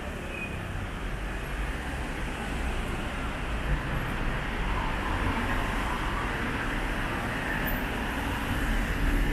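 Street traffic: a steady rumble of passing vehicles, slowly growing louder.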